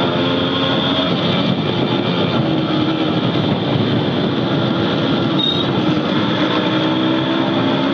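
Motorcycle engine running steadily at riding speed, heard from the rider's seat with a steady rush of wind and road noise over it.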